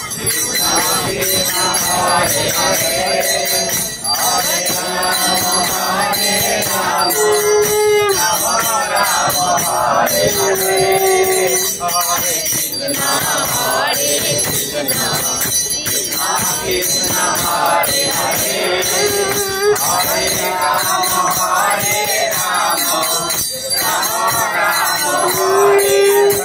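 A group singing an aarti hymn together, with rhythmic hand-clapping and a small bell ringing steadily throughout.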